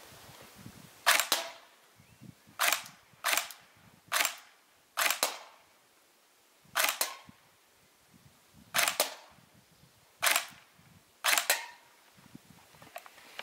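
GSG G14 electric-blowback airsoft rifle firing single shots, about nine in all, spaced one to two seconds apart. Each shot is a sharp, snappy clack with a short tail.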